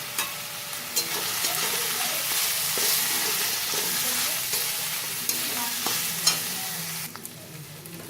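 Masala of onion paste, ginger-garlic paste and ground spices frying in mustard oil in a pan, sizzling as a spatula stirs and scrapes it, with occasional clicks of the spatula against the pan. The sizzle quietens near the end.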